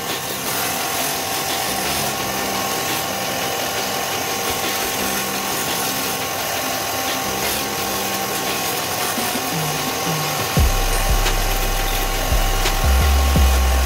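Bench disc sander running while a polycarbonate fin blank is pressed against the abrasive disc to shape its edge: a steady gritty grinding and rubbing with no let-up. Background music with a heavy bass line comes in near the end.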